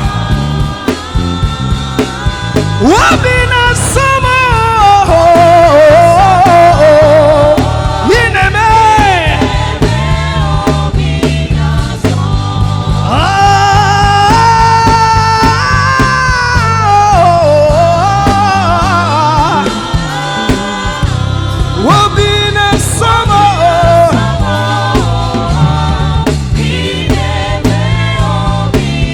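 Live gospel worship music: a solo singer holding long, wavering, melismatic lines over a band with steady bass and keyboard backing.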